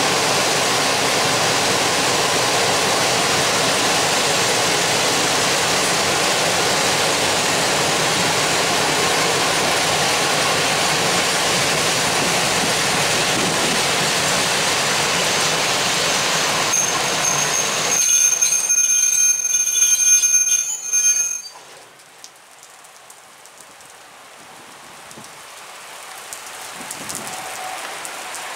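Long train of cement hopper wagons rolling past, a steady loud rush of wheels on rail, with a high, steady multi-tone wheel squeal setting in about seventeen seconds in as the train slows to enter the station. The sound cuts off suddenly a little after twenty seconds, leaving a much quieter hiss.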